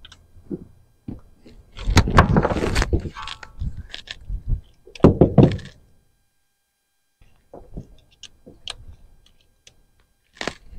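Thunks and knocks of tools and parts being handled: two louder clusters about two and five seconds in, then a run of light clicks.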